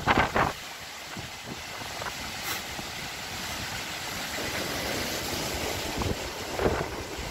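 Strong storm wind: gusts buffet the microphone in bursts at the start and again near the end, with a steady rush of wind between them that builds through the second half.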